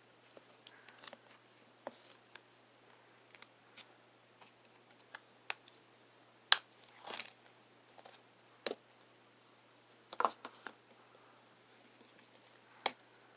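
Irregular light clicks and taps of small objects being handled, sparse and uneven, with a short rustling scrape about seven seconds in.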